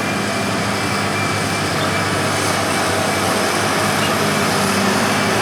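Diesel engines of heavy earthmoving machinery running steadily, a low engine note under a broad mechanical rumble.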